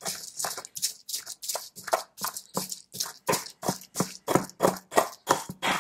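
Stone pestle grinding red onion, cilantro and crushed chiltepín chilies in a volcanic-rock molcajete, working them into a paste: quick, even grinding strokes, about three a second.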